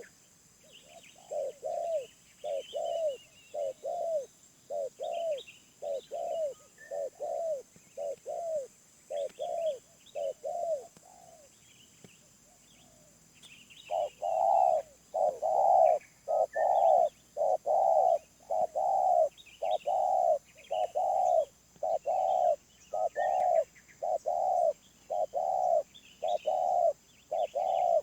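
Spotted dove (tekukur) cooing in a long, rapid series of short coos that stops for about two seconds midway and then resumes louder. Small birds chirp faintly behind it.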